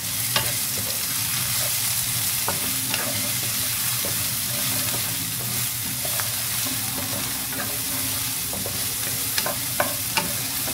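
Sliced garlic and shallots sizzling in a little oil in a pan with a steady hiss, stirred with a wooden spatula that knocks against the pan now and then, a few quick knocks near the end.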